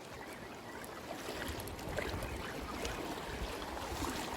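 Sea water washing and sloshing against shoreline rocks, with a low rumble that swells from about a second in and scattered small clicks.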